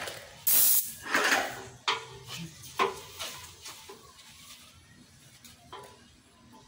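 Graco Magnum ProX19 airless paint sprayer's gun spraying paint in short hissing bursts. Two strong bursts come in the first second and a half, then two shorter, weaker ones. After about three seconds only faint clicks remain.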